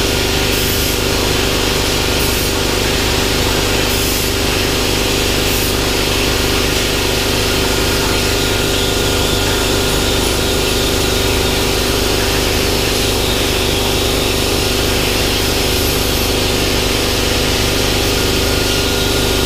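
Hypertherm 65 plasma torch on a CNC plasma table cutting sheet steel: a loud, steady hiss of the arc and cutting air with a constant hum beneath it.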